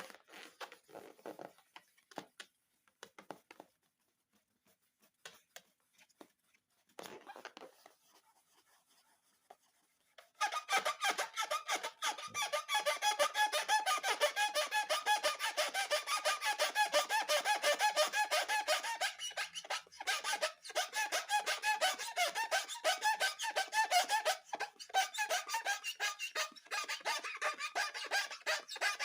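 Inflated rubber balloons squeaking as they are rubbed and squeezed by hand. For about ten seconds there are only scattered short rubs and clicks; then a dense run of rapid, high-pitched rubber squeaks begins and carries on.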